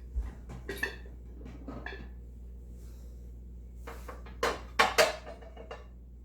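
Dishes and kitchen containers knocking and clinking as they are handled and set down, with a few louder clatters about four to five seconds in.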